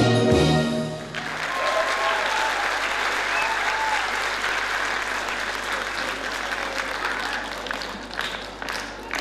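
Dance music ends about a second in and an audience breaks into applause; near the end the clapping falls into a steady beat of about two claps a second.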